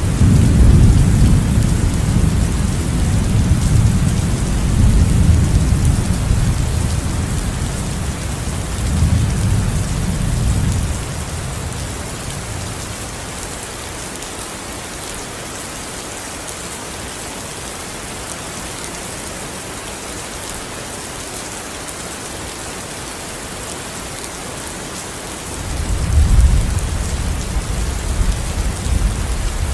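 Steady rain hissing, with long low rolls of thunder rumbling over the first ten seconds or so and again near the end.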